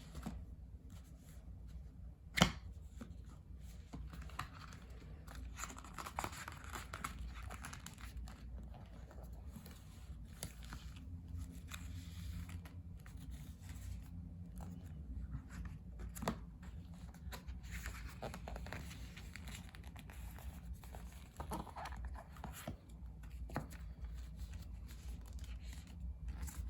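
Paper and plastic album packaging handled by hand: soft rustling and crinkling, with a sharp knock about two and a half seconds in and a smaller one later.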